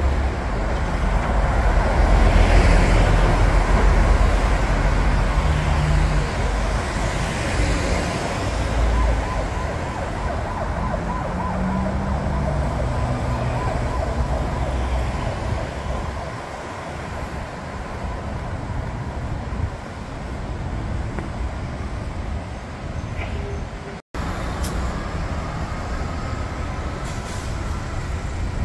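Traffic on a wide city road: buses and cars passing close by, with a heavy vehicle's low rumble loudest in the first several seconds, then a steadier traffic hum.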